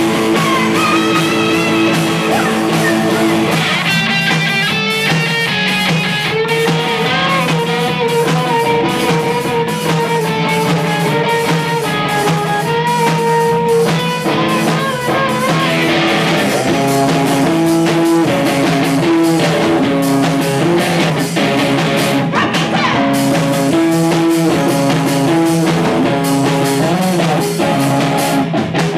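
Live rock band playing loudly: electric guitars over a drum kit, with a woman singing.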